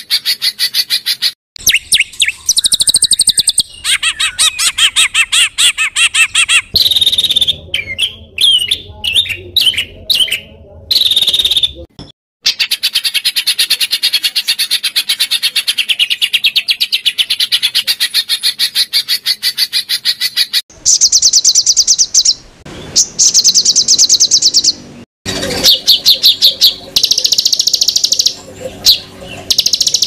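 Songbird calls in harsh, rapid-fire 'tembakan kasar' phrases: fast chattering trills and repeated shrill notes in loud bursts that break off sharply, with a few brief silent gaps between them.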